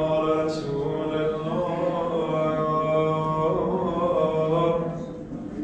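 A man's voice chanting a devotional recitation in long, held notes with slow changes of pitch, growing fainter near the end.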